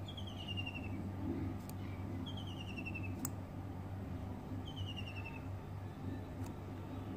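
A bird calling: a short, rapid trill that slides down in pitch, repeated three times about two and a half seconds apart, over a steady low hum.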